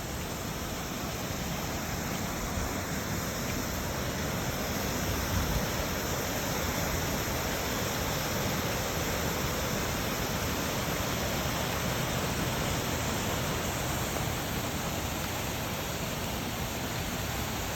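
Steady rushing of flowing water, a constant even hiss and rumble, with a brief low thump about five seconds in.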